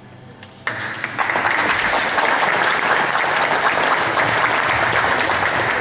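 Audience applauding: many hands clapping that break out about half a second in, swell within a second and keep going steadily.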